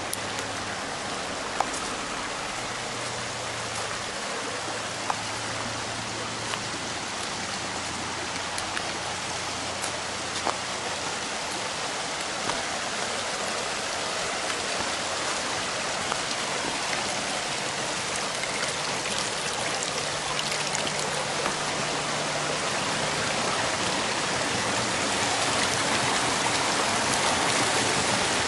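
Shallow rocky stream babbling steadily, growing louder near the end where water spills through a stepping-stone crossing, with a few light clicks.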